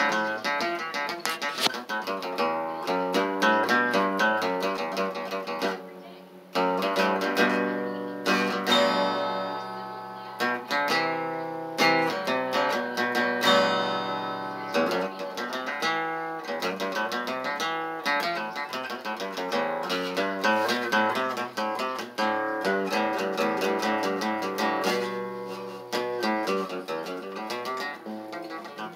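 Acoustic guitar played solo: a run of picked and strummed chords that ring out, with a brief lull about six seconds in.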